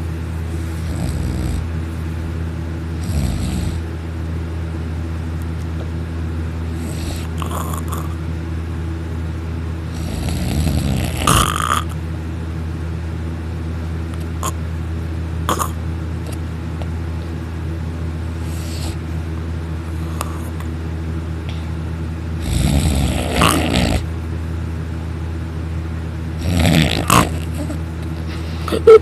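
A young man snoring loudly in a heavy sleep brought on by sleeping pills. Rasping snores rise every few seconds, the loudest around the middle and near the end, over a steady low hum. A sharp knock comes right at the end.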